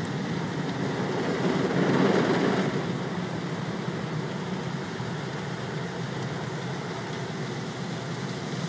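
Automatic car wash working over a car, heard from inside the cabin: a steady rush of water spray and wet cloth strips washing across the windshield and body, swelling louder for a moment about two seconds in.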